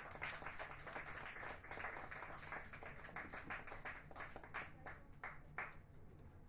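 Faint applause from a small audience, hand claps thinning out and dying away about five and a half seconds in.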